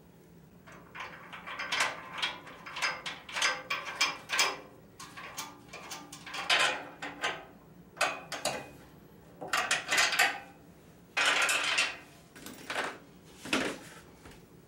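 Steel legs and bolts of a pellet smoker's frame being fitted by hand: a quick, irregular run of metal clinks, knocks and rattles, with a longer rasp about eleven seconds in.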